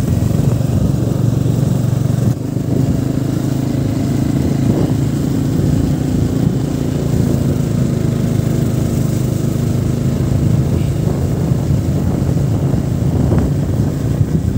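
Motorcycle engine running steadily while riding along at cruising speed, heard from the rider's own bike, with wind rushing over the microphone.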